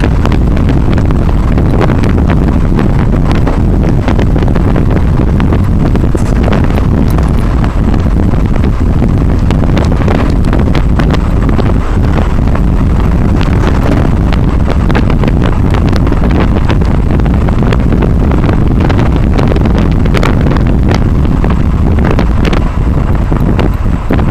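Wind buffeting the camera microphone on a moving motorcycle, a loud, steady rushing with frequent crackles, over the running engine and road noise of a 150 cc motorcycle.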